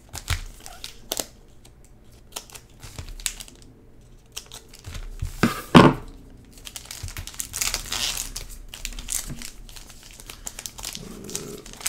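Foil trading-card pack wrappers crinkling and rustling as the packs are cut open and handled, with scattered sharp snips and crackles and one louder burst of crinkling just under six seconds in.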